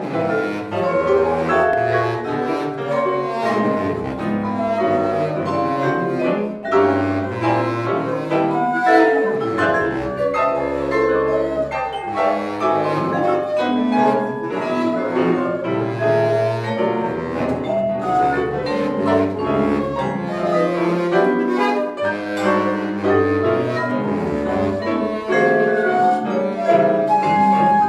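Contemporary chamber music for bass flute, baritone saxophone, piano and percussion, played live: dense, busy lines of short, quickly changing notes with scattered sharp attacks.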